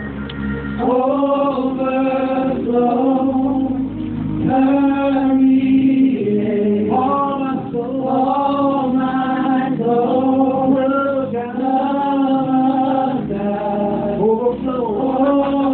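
Gospel praise-and-worship singing: a man leads on a microphone with a small group of singers, in phrases of held notes with short breaks between them.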